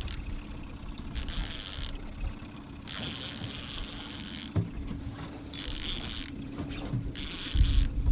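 A boat motor runs steadily underneath while a fishing reel buzzes in four short bursts of about a second each, as line is cranked in on a hooked king salmon.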